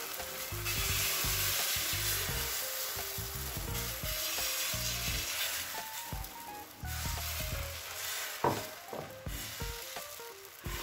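Egg-and-wheat-flour batter sizzling on a hot ghee-greased tawa as it is spread out with a steel ladle, with the ladle scraping and one sharp tap about eight seconds in. The sizzle dies down toward the end.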